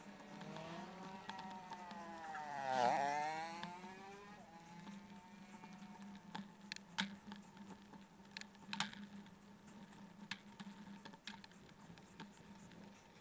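A motor vehicle passes close by, its sound rising and then falling away in pitch, loudest about three seconds in. Afterwards there are scattered sharp clicks over a steady low hum.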